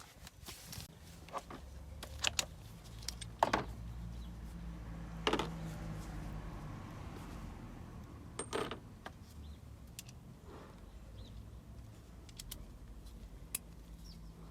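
Metal hand tools clinking and knocking every few seconds, over a low steady hum.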